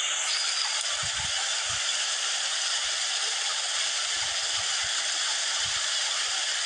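Shallow stream water rushing steadily over rocks and through a stone fish-trap wall, with a few short low thumps.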